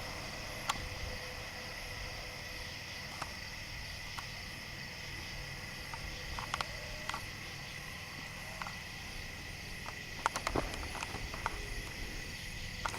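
Steady chorus of crickets and other night insects, a constant high-pitched trilling, with a low background hum and scattered faint clicks and taps, clustered about ten seconds in.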